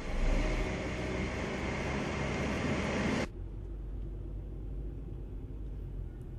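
Taxi driving, heard from inside the cabin: engine and road noise with a loud hiss, which cuts off suddenly about three seconds in, leaving a quieter, steady low engine rumble.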